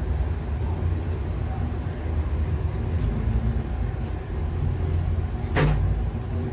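Steady low background rumble, with a light click about three seconds in and a short sharp sound shortly before the end.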